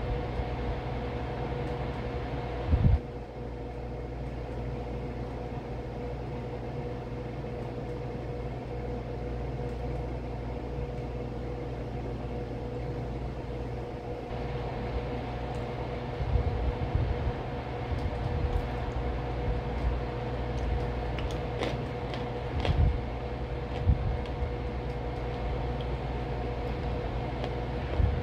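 Steady mechanical hum with a low rumble and a couple of steady tones, joined by a few brief knocks and light clicks, the loudest about three seconds in.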